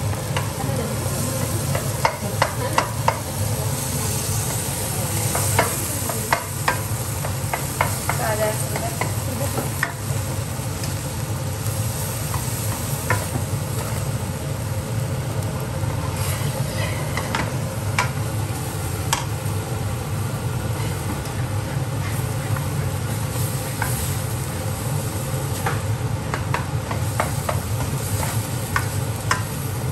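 Plastic spatula stirring and scraping fried rice around a nonstick wok as it sizzles, with frequent clicks and taps of the spatula against the pan over a steady low hum.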